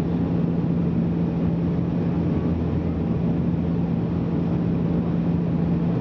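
Cabin noise of a Bombardier Dash 8 Q400 turboprop airliner descending on approach: the steady drone of its propellers and engines, with a constant low hum under an even rush of airflow.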